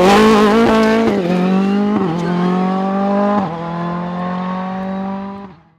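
Ford Fiesta R5 rally car's turbocharged four-cylinder engine pulling at high revs, with three brief dips in pitch along the way, then cutting off near the end.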